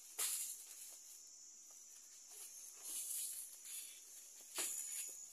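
Woven plastic sack rustling and crinkling as it is handled, in a few brief bursts about a second or two apart.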